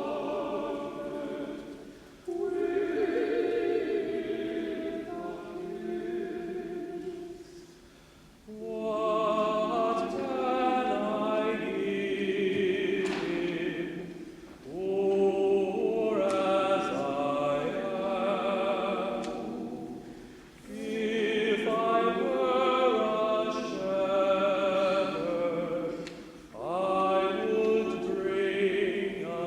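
A choir singing in sustained phrases with vibrato, each lasting about six seconds and followed by a short pause for breath.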